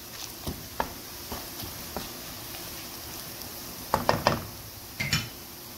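Wooden spatula knocking and scraping against a wok while browned onions sizzle in hot oil, with a cluster of louder knocks about four seconds in and another a second later.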